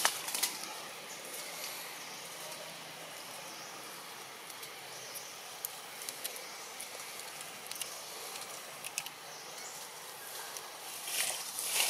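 Quiet outdoor forest ambience: a steady hiss with a faint, thin, high insect drone and a few small clicks. Louder rustling starts near the end.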